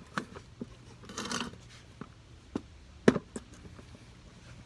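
Handling noise from setting up a jack and blocking under a tire: scattered light clicks and knocks, a short scrape about a second in, and one sharper knock about three seconds in.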